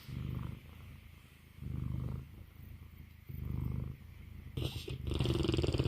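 Mastiff snoring in deep sleep: three short, low, rattling snores about a second and a half apart, then a louder, longer snore near the end.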